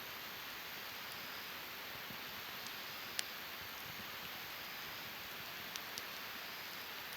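Wood campfire burning: a steady soft hiss with a few sharp crackles of burning wood, the loudest about three seconds in and two smaller ones near the end.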